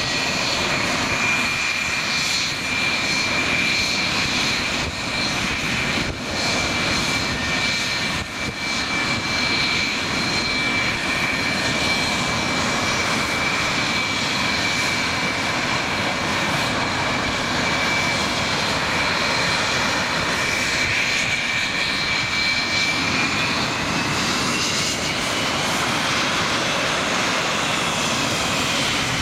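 English Electric Lightning's twin Rolls-Royce Avon turbojets running at idle, a steady jet roar with a high whine. About three-quarters of the way through, the whine rises in pitch, then starts to fall again near the end.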